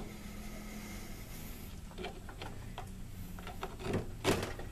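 Wooden handle being worked onto a draw knife's metal tang: faint scraping and a few small knocks, the loudest near the end, over a low steady hum.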